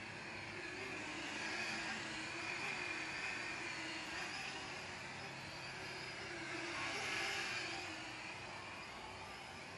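DeeRC D20 mini quadcopter's brushed motors and propellers whining in flight. The pitch wavers as the throttle shifts, and the buzz swells and fades twice.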